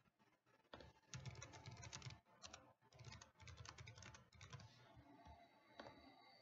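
Faint typing on a computer keyboard: a quick run of key clicks lasting about four seconds, then a few scattered clicks near the end.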